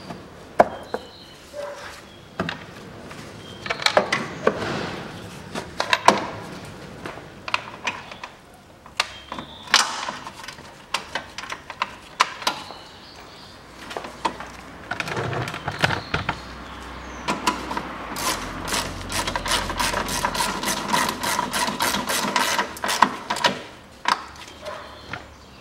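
Hard plastic clicks and knocks as the air intake duct and air filter housing of a Daewoo Matiz are handled and clipped back in place, with a run of quick, evenly spaced clicks about two-thirds of the way through.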